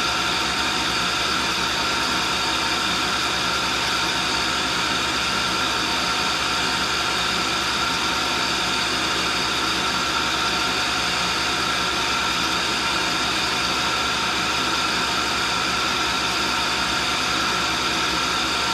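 Cincinnati No. 2 tool and cutter grinder running: the wheel is grinding a hardened lathe center true while the motorized work head spins the center. It makes a steady, even whir with several steady tones and no change in level.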